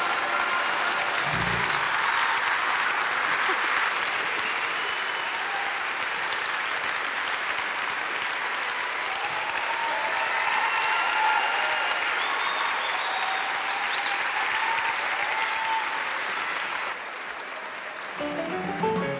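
Audience applauding at length after a choral song. Near the end the applause drops away and band music begins.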